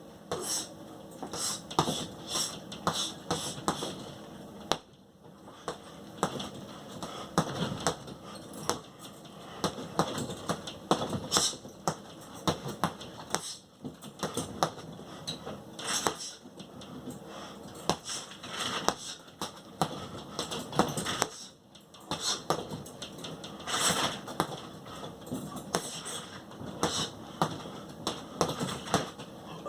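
Irregular sharp taps and knocks coming in quick clusters, with short breaks between runs.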